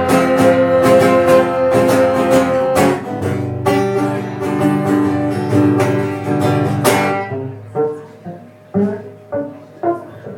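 Live band playing an instrumental break with strummed and plucked guitar in a bluegrass-country style. About seven seconds in the band drops out, leaving a few sparse single plucked notes.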